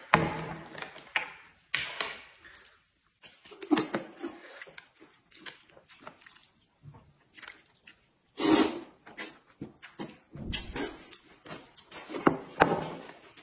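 A man eating stir-fried noodles with chopsticks: irregular short slurps and chewing noises with small clicks of chopsticks on a plate, separated by quiet gaps. The loudest slurp comes about eight and a half seconds in.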